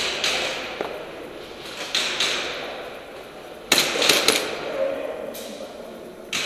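Airsoft gun shots, a few single shots and then a quick run of three, each echoing briefly.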